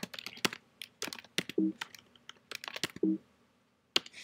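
Typing on a computer keyboard: a run of irregular key clicks, with one sharper, louder keystroke near the end.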